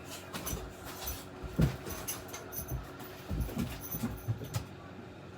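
Scattered soft rustles, taps and light clicks, irregular and low in level.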